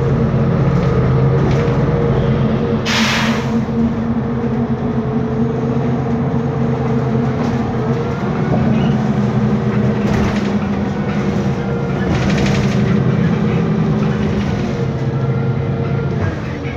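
Steady drone of a Mercedes-Benz Conecto G articulated bus underway, heard from inside the passenger cabin: the rear-mounted OM457LA six-cylinder turbodiesel and its engine cooling fan running with a few steady humming tones. A short hiss cuts in about three seconds in.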